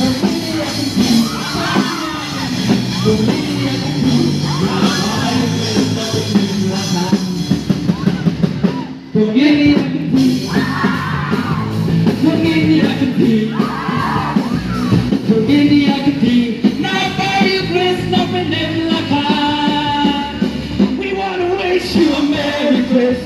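A live band on a truck playing loud amplified music with guitars and drums, a voice singing over it through loudspeakers, and people in the crowd yelling along.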